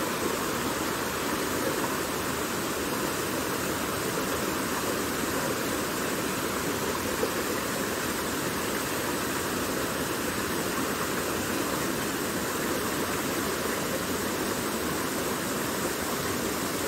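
Small fast-flowing stream rushing over rocks: a steady, even rush of water.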